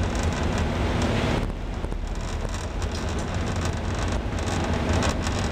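Steady low drone of a ship's engines under a dense wash of wind and breaking-sea noise, swelling briefly about a second in.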